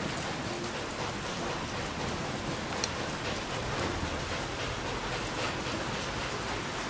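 Steady hiss of rain falling, with a light metallic clink of a ladle about three seconds in.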